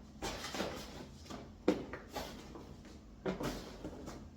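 Groceries being handled: a string of short rustles and light knocks at irregular intervals.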